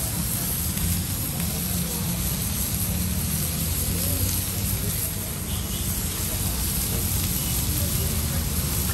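Chopped onions and tomatoes sizzling steadily on a hot flat-top griddle, over a low steady rumble.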